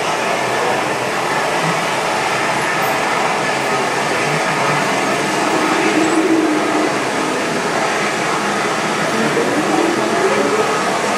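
Märklin HO-scale AC model trains running on the layout: a steady whirring rumble of small electric motors and wheels on track, swelling slightly around the middle and again near the end.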